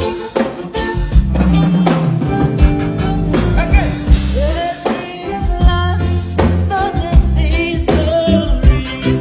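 Band music with a singer over drums, bass and guitar, with a steady beat.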